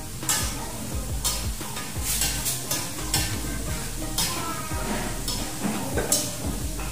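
Metal spatula scraping and stirring food frying in a wok on a gas burner, with a steady sizzle; the scrapes come roughly once a second.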